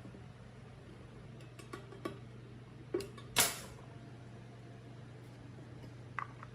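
A few short clicks and knocks, then a sharper knock followed by a brief hiss-like scrape, over a steady low hum; a couple of small clicks near the end.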